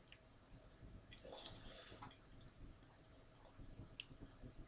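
Faint, scattered clicks of a bowl against a plate, with a soft squelch of food sliding out, as pasta is tipped from an upturned bowl onto a plate.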